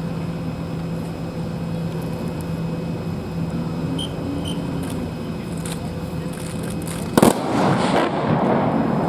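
A steady low hum, then about seven seconds in a single loud sharp crack followed by a couple of seconds of rough noise.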